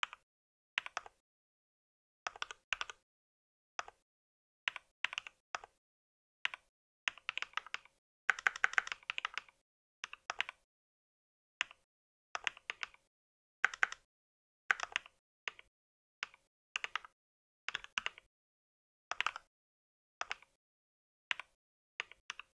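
Typing on a mechanical computer keyboard: short bursts of keystroke clicks with silent pauses between them, and a longer run of quick typing about eight seconds in.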